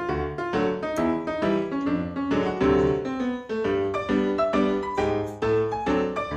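Background music: an upbeat ragtime piano piece with a steady bouncing rhythm of bass and chords.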